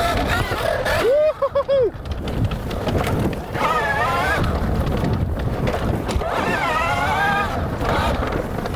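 Sur-Ron Storm Bee electric motocross bike ridden hard on a dirt trail: the electric motor's whine rises and falls in pitch several times with the throttle, over the rush of the tyres on dirt and leaves. About a second in there is a short stuttering whine.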